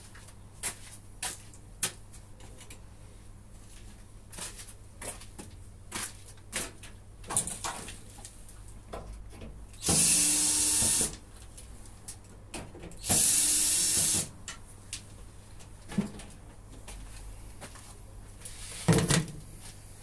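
Scattered light knocks and clicks of hands working on a washing machine, with two steady hisses of about a second each near the middle.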